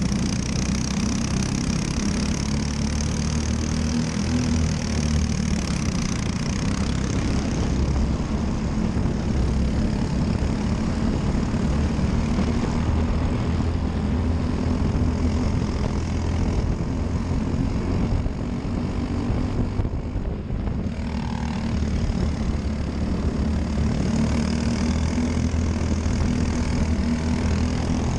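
Briggs & Stratton LO206 four-stroke single-cylinder kart engine running hard at racing speed, with wind noise over it. The sound lulls briefly about twenty seconds in.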